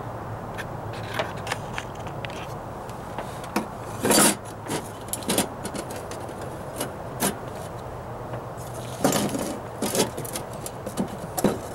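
A sheet-metal patch and a metal speed square being handled and set against a rusted steel truck floor pan: scattered light metallic clinks and scrapes, with a louder rattle about four seconds in and another cluster near the end, over a steady low hum.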